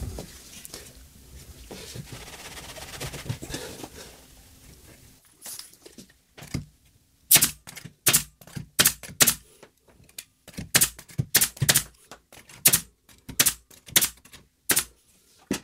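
Pneumatic brad nailer firing, a dozen or more sharp shots, often in quick pairs, driving brads into a glued wooden batten. The shots start about five seconds in, after some quieter handling of the workpiece.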